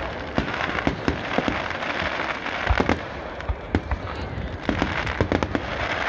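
Fireworks display: aerial shells bursting in the sky, with many sharp bangs at irregular intervals over a steady rumble.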